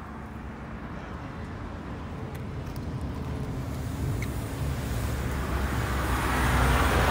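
Road traffic noise from vehicles on the road beside the sidewalk, growing steadily louder toward the end as a vehicle's tyre and engine noise approaches.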